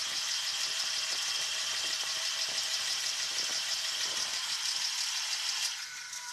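Steady mechanical rattle with a high hiss and a thin whine from running machinery, cutting off sharply near the end.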